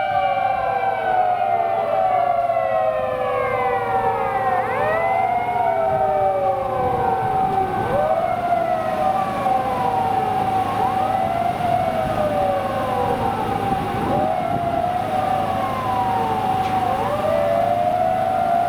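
Fire engine ladder truck siren wailing, several rising and falling tones overlapping one another over a steady held tone.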